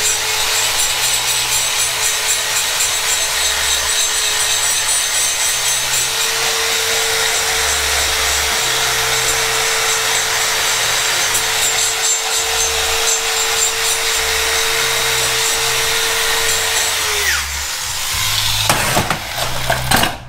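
High-speed die grinder cutting the aluminium ports of a cylinder head: a steady high whine over a harsh grinding hiss, with the whine falling away as the tool winds down about three seconds before the end.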